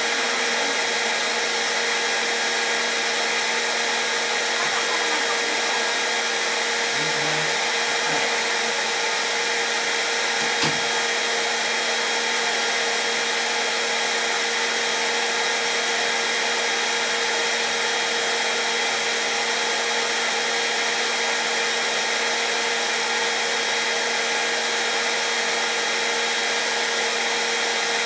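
Hair dryer running steadily: an even blowing rush with a constant motor hum that does not change. One faint knock about ten seconds in.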